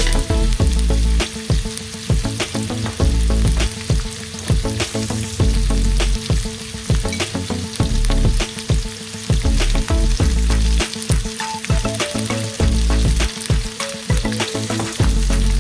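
Chicken pieces and chopped garlic sizzling in hot oil in a wok, with the frequent clicks and scrapes of a wooden spatula stirring them.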